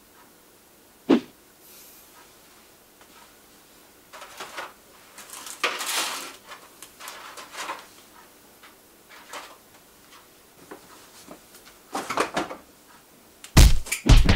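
Household kitchen handling sounds: a single sharp knock about a second in, then rustling and clattering of things being moved on the counter, and near the end a tall cupboard door being opened with two loud, deep thumps.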